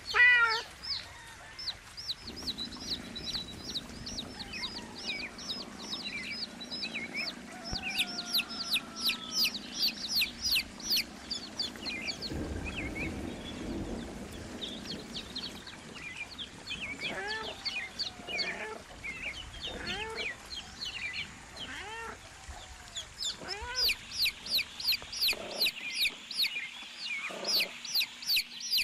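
A brood of young chicks peeping: many rapid, high-pitched chirps, each dropping in pitch, thickest near the end. There is one louder call right at the start, and lower, longer calls are mixed in through the middle.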